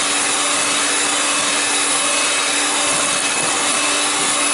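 Electric hand mixer running steadily at a constant speed, its beaters whirring through sponge-cake batter in a glass bowl.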